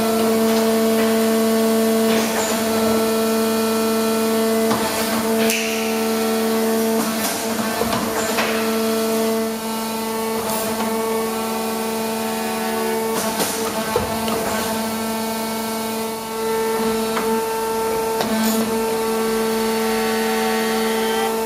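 Hydraulic power unit of an Eaton Leonard VB40 CNC tube bender running: a steady, loud hum with a whine above it, joined by a higher whine about halfway through, with scattered clicks and knocks from the machine.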